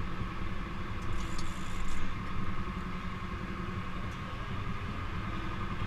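Sportfishing boat's engine running at a steady, low hum, with a brief louder rush of noise about a second in.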